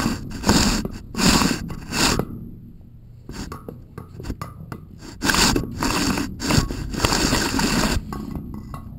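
A camera scraping and rubbing against the wall of a well as it is lowered, in short repeated scrapes. Near the middle there is a quieter stretch of faint ticks, then the scraping resumes.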